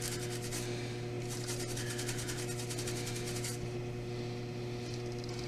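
Rapid back-and-forth scrubbing on a corroded contact pad of a joystick circuit board, being cleaned with DeoxIT. It comes in two spells, the second ending a little past halfway, over a steady low hum.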